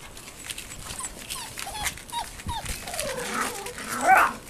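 Irish terrier puppies whining in short, high, falling whimpers, with a louder yelp near the end, amid scattered clicks.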